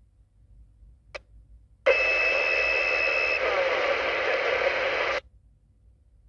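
Intek M-150 Plus CB transceiver's speaker: a short click, then the squelch opens on an incoming transmission. About three seconds of loud radio static follow, with a steady whistle tone over the first half, and it cuts off suddenly.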